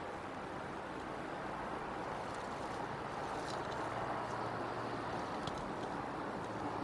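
Steady rushing outdoor background noise on the nest camera's microphone, with a few faint high clicks.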